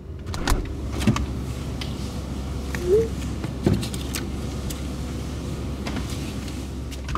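A steady low hum with scattered knocks and rattles as things are taken out of an open refrigerator, and one brief squeak about three seconds in.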